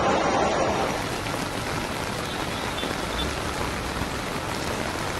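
Heavy rain falling steadily on a flooded street, an even hiss. In the first second, floodwater is heard rushing and splashing.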